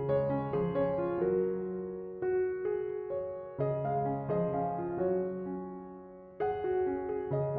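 Gentle background piano music: a slow melody of notes that each strike and fade, over lower held notes.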